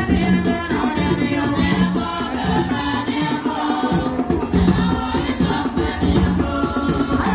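Music with singing voices over a repeating low beat.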